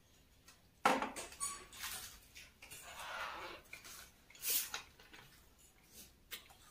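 Plates and a plastic bottle being handled at a meal table: a sudden clatter about a second in, then irregular rustling and clinks, with another sharp clink a few seconds later.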